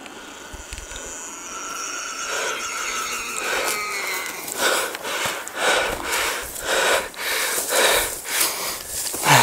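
A hunter panting hard while climbing a steep slope on foot during a long chase: loud, rasping breaths about two a second that start a few seconds in, after a quieter stretch with faint drawn-out falling whines.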